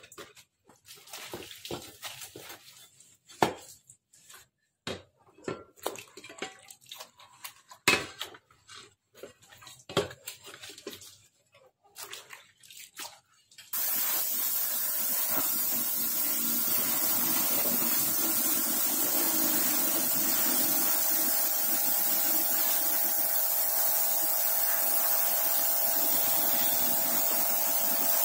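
Scattered clicks and knocks of work on metal parts, then, about halfway through, a loud, steady hissing spray with a steady hum in it starts suddenly and runs on.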